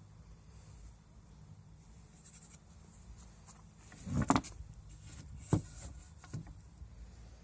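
A few sharp knocks over a low steady hum: a loud double knock about four seconds in, then two lighter knocks about a second apart.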